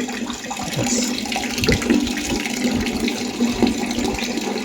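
Water running steadily from an old faucet, turned on to test it after its worn gasket was replaced.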